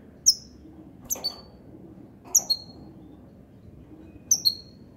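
Caged goldfinch hybrid (mule) giving short, sharp, high chirps, one single and then three quick pairs about a second apart.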